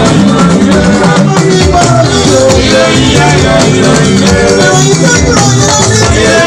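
Live juju band music: Yoruba talking drums, drum kit and keyboard playing together over a steady beat, with a shaker.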